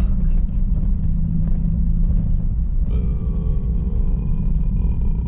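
Steady low rumble of a 2021 Chevrolet Silverado pickup driving, with a faint steady whine joining about three seconds in.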